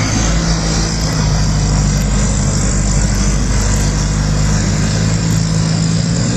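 A machine running steadily: a low motor hum under a loud, even hiss. It starts and cuts off abruptly.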